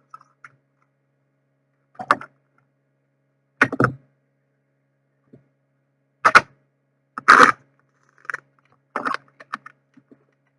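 A tarot card deck being handled and shuffled by hand: about six short, sudden card noises, a second or two apart.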